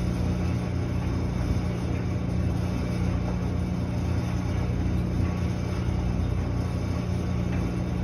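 Samsung clothes dryer running, with a steady low hum and rumble from its motor and tumbling drum.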